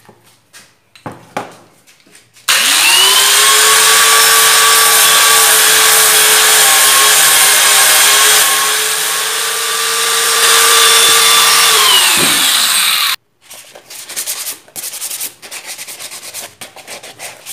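Small electric angle grinder with a sanding disc switching on and spinning up with a rising whine about two seconds in, running steadily at a high pitch, then winding down near the end before the sound cuts off. Short scraping and handling noises come before and after it.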